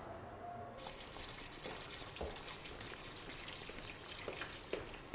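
Kitchen sink tap running steadily into the basin, with small clinks and knocks of things being handled in the sink.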